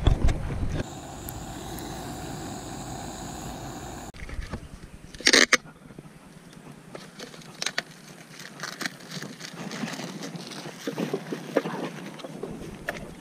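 Plastic film wrapper being torn and crinkled off an instant cup noodle. There is one sharp rip about five seconds in, then scattered crackles as the film is peeled away, after a steady rushing noise that stops abruptly about four seconds in.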